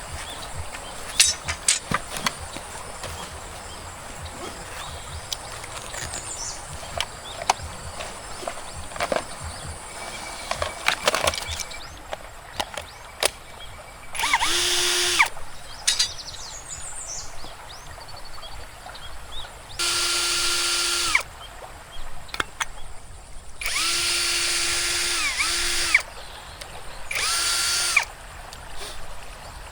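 Power drill running in five short bursts of about a second each in the second half, each spinning up and winding down, after a stretch of scattered knocks and clicks from handling.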